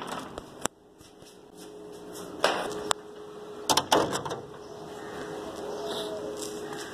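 A few sharp knocks and clicks, a door and a metal grille gate with a slide bolt being opened, the loudest a cluster about four seconds in, over a faint steady hum.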